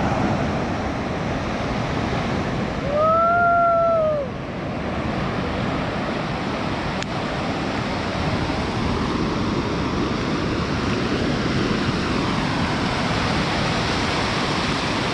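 Sea surf washing on a beach, a steady wash of noise. About three seconds in, a short pitched call rises and falls for about a second.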